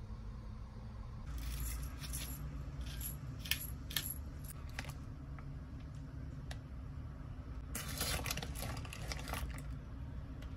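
Glass salt shaker shaken over eggs in hollowed bread rolls in several short crisp rattling bursts, then a longer burst of dry crumbling and rustling as shredded cheese is pinched and sprinkled over them near the end. A steady low hum runs underneath.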